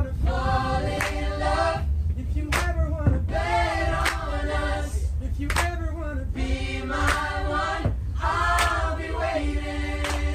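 A group of men and women singing together without instruments, in phrases a second or two long, with a sharp clap roughly every one and a half seconds. A steady low rumble runs beneath the voices.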